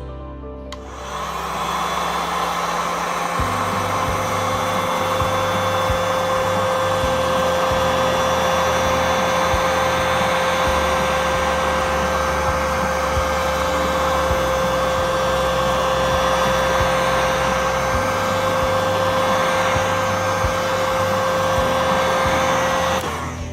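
Heat gun running steadily with a blowing whoosh and a steady whine. It switches on about a second in and cuts off near the end. It is heating the phone to soften the adhesive under the screen.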